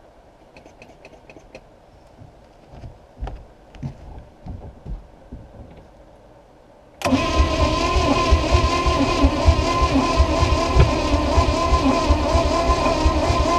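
A few faint clicks, then about seven seconds in a small-block Chevy 350 V8 inboard is suddenly cranked over on its starter and keeps turning over steadily with fast, even pulses without catching. The owner takes the engine to be flooded with too much fuel.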